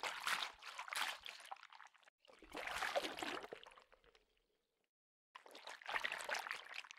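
Water splashing and pouring sound effect, in three separate bursts of about two seconds each, with dead silence between them.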